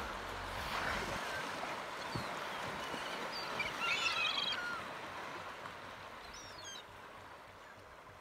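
Gulls calling over the river, with a cluster of short, high calls about four seconds in, over a steady wash of water noise.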